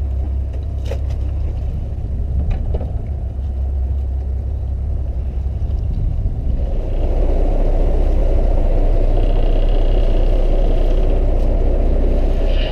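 Fishing boat's engine running with a steady low rumble, with a couple of light knocks in the first few seconds. The rumble grows louder and fuller about six and a half seconds in.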